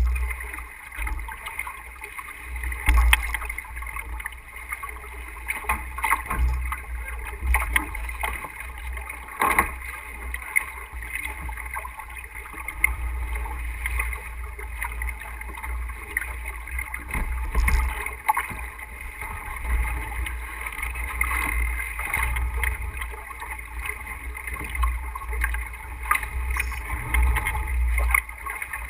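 Sailboat under way: wind buffeting the microphone in an uneven low rumble over the rush of water along the hull, with a few scattered knocks from the boat's gear.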